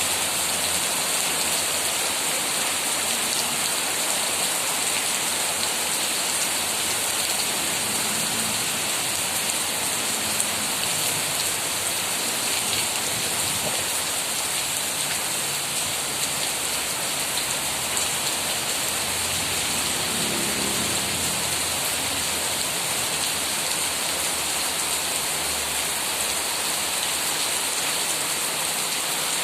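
Steady rain falling on trees and leaves, an even hiss of drops at an unchanging level.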